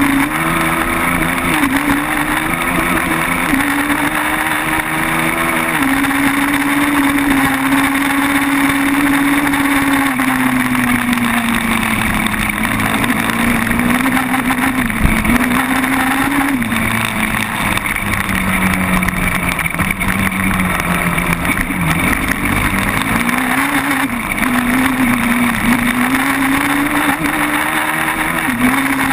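Quad bike (ATV) engine running while the quad is ridden along a dirt trail. Its pitch rises and falls again and again as the throttle is worked.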